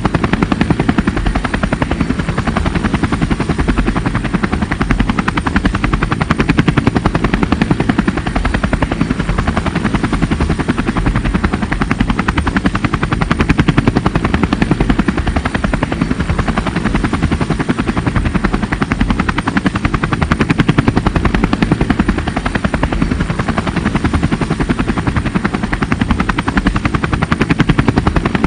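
Helicopter rotor blades chopping with a steady, rapid beat.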